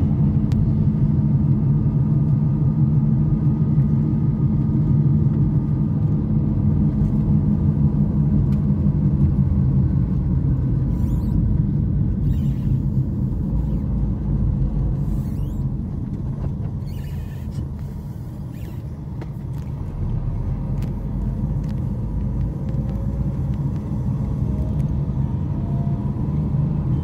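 Car engine and road noise heard from inside the cabin while driving: a steady low hum that eases off about halfway through and picks up again toward the end.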